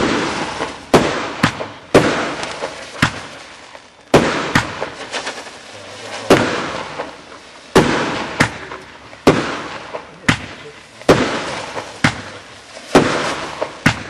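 A consumer firework barrage firing a rapid string of sharp bangs, about one to two a second and unevenly spaced. Many bangs are followed by a fading hiss.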